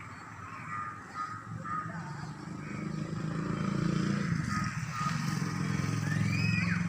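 A motor engine running steadily, growing louder about three seconds in, with a few short chirping calls near the end.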